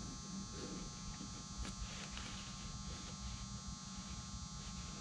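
Steady electrical hum and buzz with a low rumble underneath, over faint, uneven scratching of a pencil being drawn around a cup on the wing's fabric covering, with a few small clicks.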